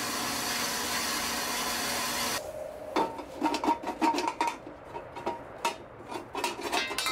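Horizontal metal-cutting bandsaw sawing through a bent exhaust-tubing donut: a steady rasping whir that cuts off abruptly about two and a half seconds in. The separated pipe pieces then clink and ring briefly as they are handled.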